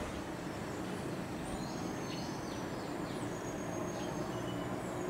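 Birds chirping with short, high, repeated calls over steady outdoor background noise.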